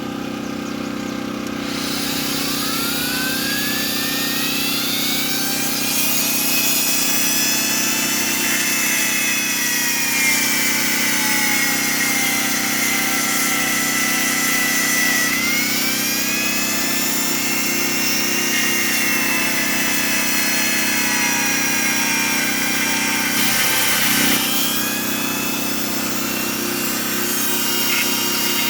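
Dremel rotary tool with a chainsaw-sharpening attachment and grinding stone running and sharpening saw chain teeth: a high whine that climbs as it spins up in the first few seconds, then sags and recovers in pitch as the stone loads up on the teeth, over a steady low hum.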